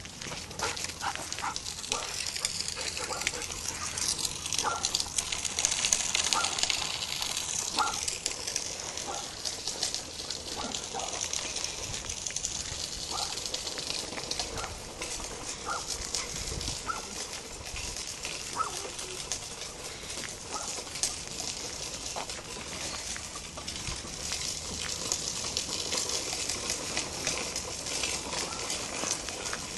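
Footsteps and the rustle and scuffing of a handheld phone while walking outdoors, a steady crackly hiss broken by many small ticks and clicks.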